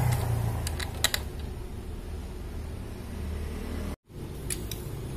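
A few sharp metallic clicks and clinks of a hand wrench on the motorcycle's engine-case bolts, over a steady low hum; the sound drops out briefly about four seconds in.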